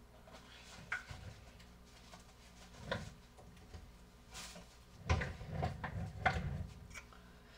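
Scattered knocks and clicks of kitchen items being handled at a counter, busiest with a run of knocks and low rumbling handling noise about five seconds in.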